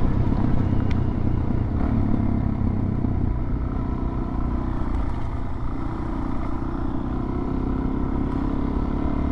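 Suzuki DR-Z400 single-cylinder dual-sport motorcycle engine running at a steady pace while riding, heard from the rider's own microphone.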